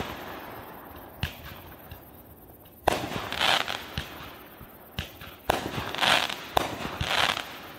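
Consumer aerial fireworks going off: a string of sharp bangs about a second apart, several of them followed by bursts of crackling.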